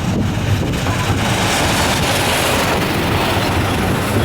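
Steady rumble of a Ravenglass and Eskdale Railway miniature train on the move, with wind rushing across the microphone; the rushing hiss swells about halfway through.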